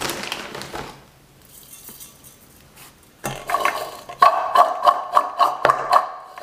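Crisp, sugar-coated fried glutinous-rice strips (jiangmi tiao) rattling against the sides of a ceramic bowl as it is shaken, about three jolts a second, with the bowl ringing slightly. A short rustle comes first, then a quiet second or two before the shaking starts.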